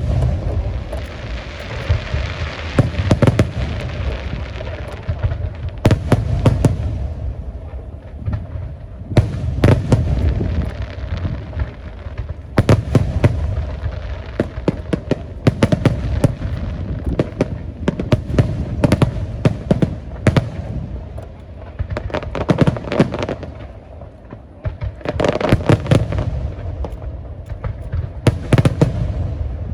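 Aerial fireworks display: shells bursting in dense volleys of sharp bangs every second or two, over a continuous low rumble, with a crackling hiss in the first few seconds.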